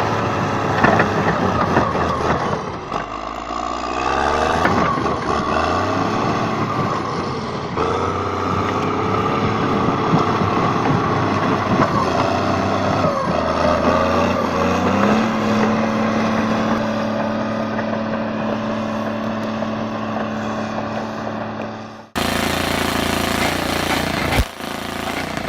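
A heavy earthmoving machine's diesel engine working, its pitch rising and falling with the load. Near the end the sound breaks off abruptly and a different, noisier machine sound takes over.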